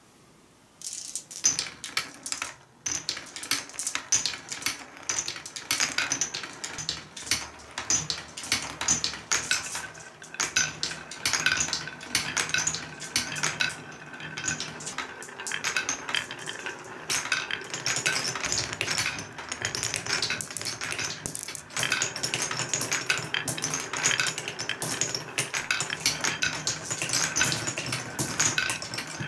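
Many glass marbles rolling and clattering down a wooden marble run, clicking on the wooden spiral and plank tracks and against each other. The clatter starts about a second in and goes on as a dense, near-continuous clicking.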